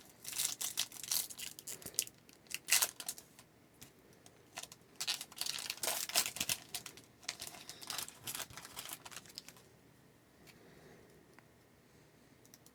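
Hockey card pack wrapper being torn open and crinkled by hand, in two spells of crackling, then going quiet near the end.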